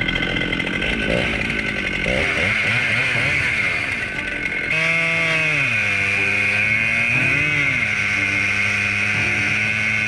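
Husqvarna chainsaw on an Alaskan chainsaw mill, ripping a slab lengthwise from a large log. Its engine note wavers at first, then about halfway in it steps up to a louder, steady full-throttle run, the pitch dipping and recovering a couple of times as it cuts.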